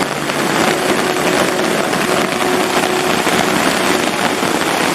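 Heavy rain pouring down steadily, with a faint steady hum underneath for most of it.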